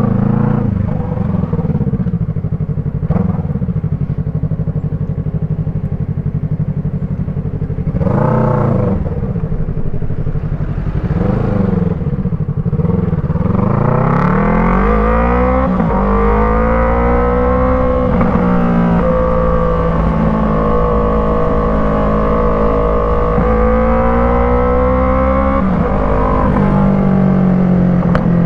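Yamaha MT-03 321 cc parallel-twin running through an Arashi aftermarket exhaust. It idles with two quick throttle blips, then the revs rise about halfway through and hold at a higher steady pitch, with a brief dip near the end.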